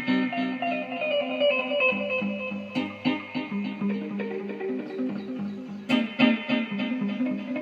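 Background music: electric guitar playing a melody with a steady rhythm.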